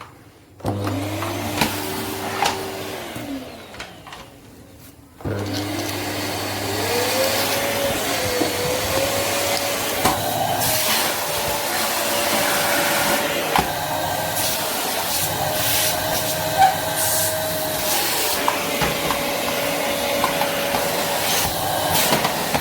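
Rowenta RO3950 bagged canister vacuum cleaner switched on about a second in, its motor whine rising, then switched off and winding down. It is switched on again about five seconds in and runs steadily, with a few scattered clicks.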